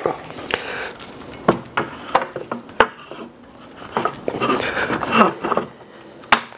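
Clanks and knocks of a weight being set and shifted in the weight holder of a joint-strength test fixture, loading a brazed aluminum tubing joint. There are about eight sharp knocks spread unevenly, with some scraping between them.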